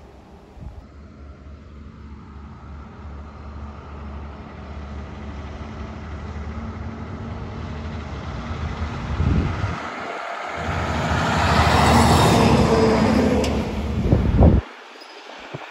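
Diesel semi-truck hauling a coal dump trailer, approaching and growing steadily louder as its engine pulls up the road. The engine sound dips briefly about ten seconds in, swells to its loudest a couple of seconds later, and its low rumble drops away suddenly near the end.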